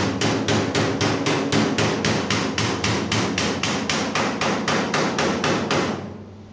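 Rapid, evenly spaced hammer blows, about four a second, that stop about six seconds in.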